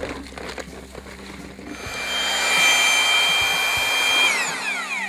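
Powdered cement adhesive pouring into a plastic bucket. Then an electric drill with a paddle mixer starts mixing it, runs at a steady high whine for a little over two seconds, and winds down with its pitch falling.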